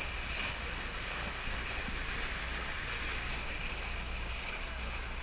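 A boat's bow cutting through the sea: water rushing and splashing at the bow wave, over a steady low rumble.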